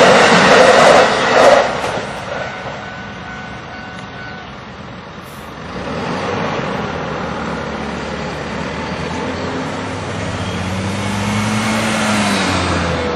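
An electric train finishes passing over a level crossing, its noise cutting off about a second and a half in. Road vehicles then drive across the crossing, with one engine note rising and falling near the end.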